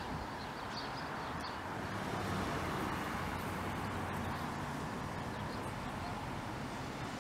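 A car passing close by: a steady rush of road noise that swells slightly about two seconds in. A few short bird chirps come in the first second and a half.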